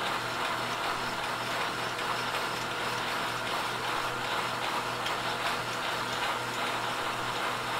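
Vertical milling machine running, its end mill cutting steadily along the inside wall of a pocket in cast aluminium jig plate at a slow feed. A steady motor hum under the even hiss of the cut.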